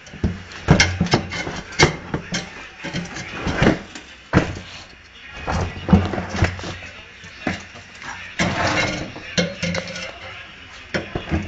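Irregular metal knocks and clicks with short bursts of scraping, from hand tools working on a Brastemp washing machine's gearbox mechanism during disassembly.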